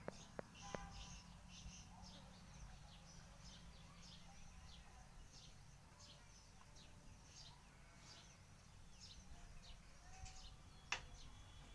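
Faint, scattered chirping of small birds over a low background rumble, with a sharp click near the end.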